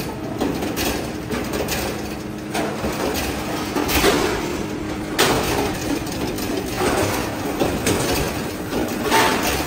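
Resistance spot welder joining the galvanized steel halves of a motorcycle fuel tank. A steady hum runs under a short, sharp burst every second or two as each weld fires, with metal clatter as the tank is turned between welds.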